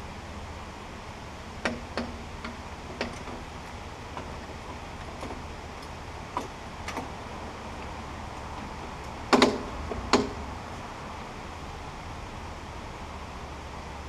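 Scattered metal clunks and knocks as a sawmill head's steel frame is shifted by hand over wooden boards onto its metal track. The loudest knocks come in a pair about nine and ten seconds in.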